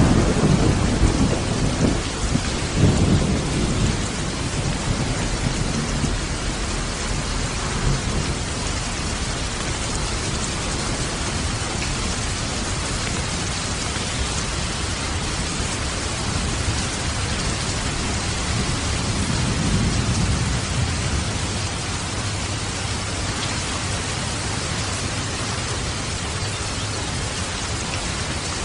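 Steady rush of rain and falling water, with low thunder rumbles in the first few seconds and again about two-thirds of the way through.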